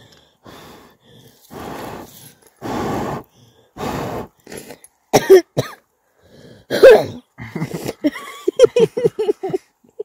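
A person blowing hard on a small fire in four long puffs, then coughing loudly twice, followed by a quick run of short vocal bursts near the end.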